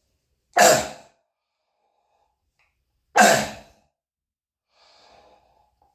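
An adult man's cough: two loud, harsh barking coughs about two and a half seconds apart, then a faint breath near the end. It is a croupy cough that he puts down to bronchitis in his throat.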